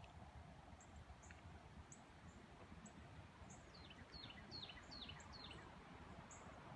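Faint birdsong over a low rumble: scattered short high chirps, and about halfway through a quick run of about five descending notes.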